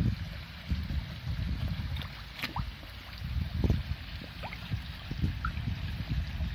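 Koi slurping and splashing at the water surface as they gulp floating food pellets: irregular wet gurgling pops.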